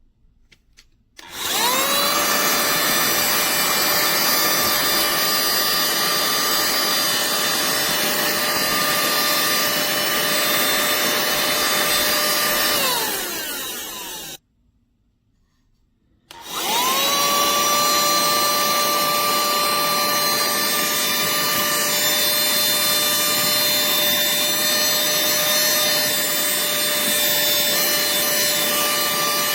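Cordless handheld mini-vacuum switched on, its small motor spinning up to a steady high whine with a rushing air sound. It winds down and stops about halfway through, then is switched on again a couple of seconds later and runs steadily.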